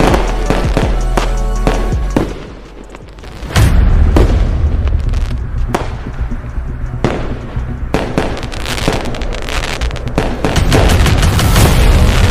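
Fireworks going off in repeated bangs and crackles over background music, with a short lull about two to three seconds in.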